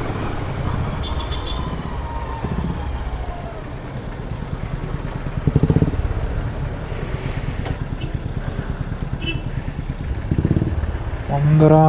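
Motorcycle engine running as it rides slowly through traffic, swelling briefly twice. Near the end a vehicle horn sounds, a steady blast that is the loudest thing heard.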